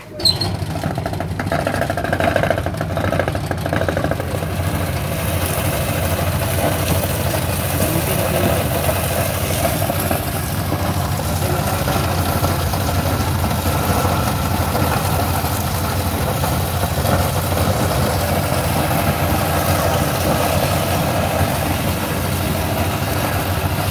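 Electric spice-grinding mill switched on with a brief jolt, then running steadily as it grinds a batch of whole spices into biryani masala.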